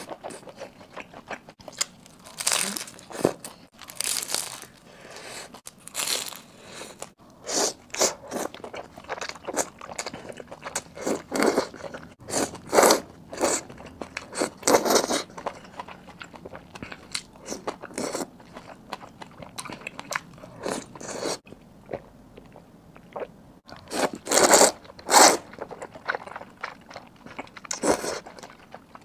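Close-miked eating sounds: potato noodles slurped from a spicy soup in irregular bursts, some lasting about a second, between chewing and biting.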